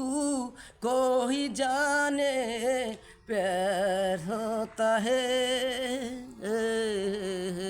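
A solo voice singing a Hindi song in long held notes with wavering pitch, in about four phrases broken by short breaths.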